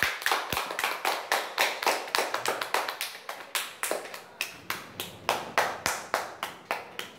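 Applause of hand claps in a steady run of about five claps a second, slowly getting quieter.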